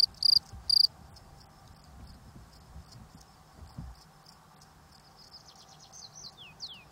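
Male field cricket (Gryllus campestris) stridulating at its burrow by rubbing its wings: short, shrill chirps, about three a second, that stop about a second in. Faint, quick, falling chirps come in near the end.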